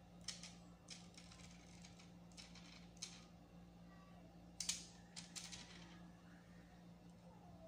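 Faint, scattered clicks and taps of fingernails on a smartphone's screen and its thin plastic film while it is handled, over a low steady hum.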